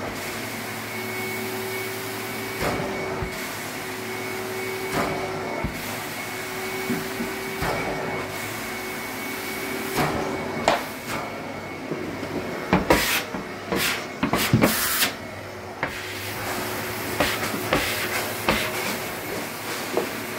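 Carpet extraction machine's vacuum running steadily with a constant whine, its wand drawing air and water as the floor tool is pulled across the carpet in strokes. Knocks come every couple of seconds as the wand is worked, with a louder run of knocks and rattles about two-thirds of the way through.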